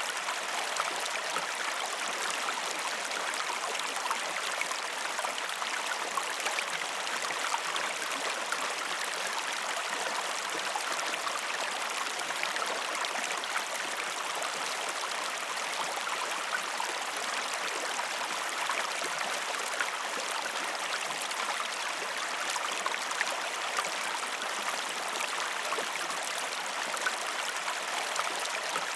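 Waterfall: a steady, unbroken rush of falling water with fine splashing, bright and hissy with almost no deep rumble.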